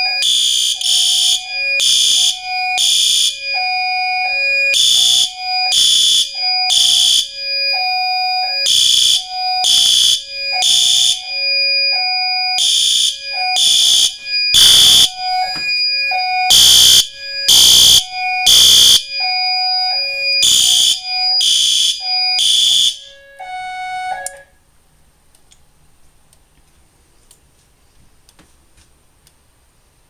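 System Sensor horn strobes (P2RL and P2W) sounding a fire alarm in the temporal-three pattern: three blasts about a second apart, then a pause, over and over, set off by a pulled pull station. A fainter two-note beep alternates beneath the horns. Everything stops abruptly about 24 seconds in.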